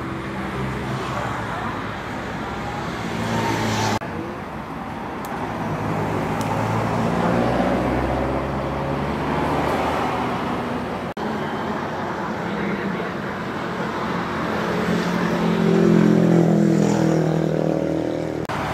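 Road traffic: a steady hum of vehicle engines and tyres, with one vehicle growing louder about three-quarters of the way through, and indistinct voices.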